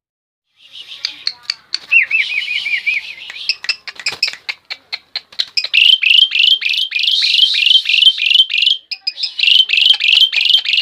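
Asian pied starling (jalak suren) singing loudly and without pause, the full song bird-keepers call gacor. It starts about half a second in with quick whistled notes and a short wavering trill, then runs into a fast chatter of repeated rising-and-falling phrases, about three a second.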